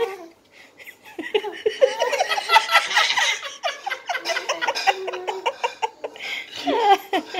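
Laughter and giggling in short, broken bursts, starting about a second and a half in, with another burst near the end.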